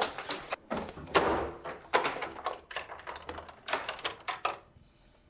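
A bedroom door being shut and locked from outside: a quick run of knocks, thuds and sharp clicks from the door, handle and lock, which dies away about four and a half seconds in.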